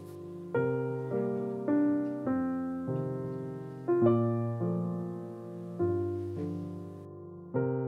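Soft solo piano music: gentle chords struck every half second or so, each one fading before the next.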